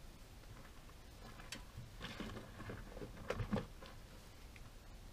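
Faint handling noise: soft rustling and clicks of things being moved about on a camp table, with a few louder soft knocks about three and a half seconds in.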